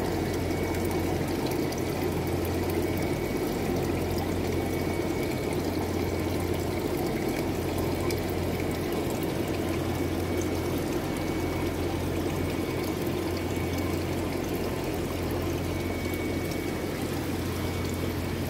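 Water running and splashing steadily in a fish-rearing tank, over a constant low hum.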